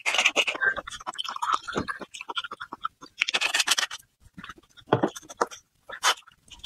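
Clear liquid poured from a glass bottle into a glass tumbler, splashing and glugging in uneven bursts. A few short, sharp knocks follow near the end.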